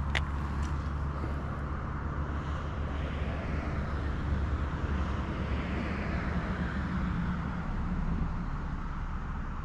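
A steady low engine drone, with a broader rushing noise that swells and fades away in the middle; a short click comes at the very start.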